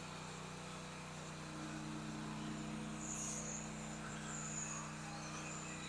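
Faint, steady hum of a motor running at constant speed, with a brief high chirp about three seconds in.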